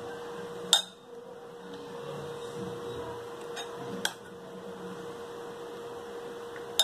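A metal spoon clinking sharply against a cut-glass bowl three times while scooping up a thick yogurt mixture, over a steady electrical hum.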